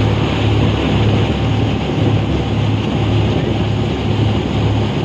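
Passenger speedboat underway at speed: the engine's low hum swelling and fading about once a second under the rush of the wake and wind buffeting the microphone.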